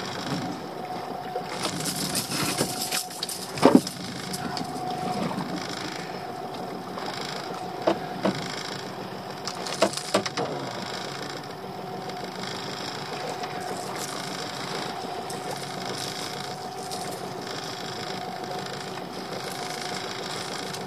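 Small fishing boat's engine idling steadily, with a few sharp knocks and rattles from the catch being handled aboard. The loudest knock comes about four seconds in.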